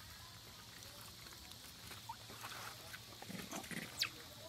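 Long-tailed macaques feeding on bananas: faint scattered rustles and low sounds, then one short, sharp squeak that falls steeply in pitch near the end.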